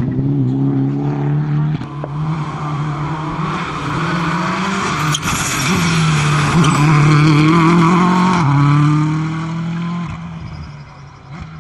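Rally car passing close at full speed, its engine note climbing and dipping with gear changes. It is loudest as the car goes by, then fades as the car drives away.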